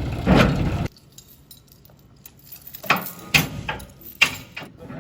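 A running engine cuts off abruptly about a second in, followed by quiet broken by a few sharp, separate clinks and knocks, like metal clattering.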